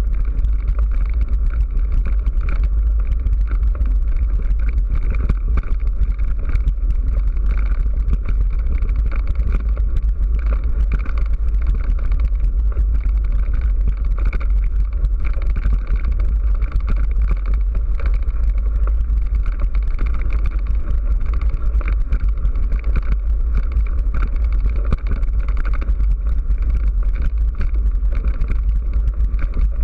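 Steady deep wind rumble on the microphone of a camera riding on a mountain bike, mixed with tyre noise and frequent small rattling knocks as the bike runs over a rough dirt and gravel track.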